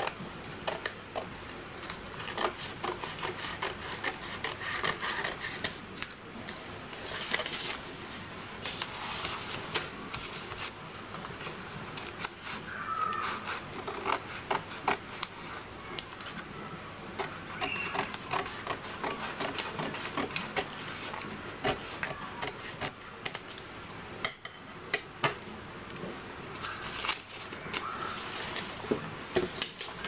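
Scissors snipping through wrapping paper, then paper rustling and sliding as the sheets are handled and folded on a table, with scattered small clicks and taps.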